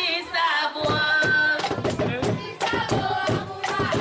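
Singing voice over percussion, the song and drumming of a boi-bumbá performance; steady drumbeats come in about a second and a half in.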